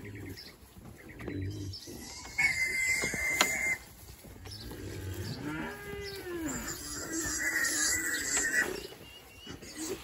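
Young pigs squealing in long, high, strained screams, twice, the first about two and a half seconds in and the second near the end, with short low grunts. The piglets are being picked up and carried, and the squeals are fright and complaint, not injury. Midway comes a lower call that rises and then falls.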